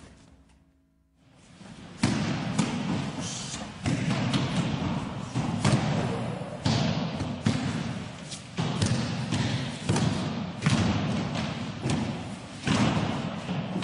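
Aikido students being thrown and landing in breakfalls on tatami mats: a string of heavy thuds, roughly one a second, each dying away quickly, starting about two seconds in after a near-silent moment.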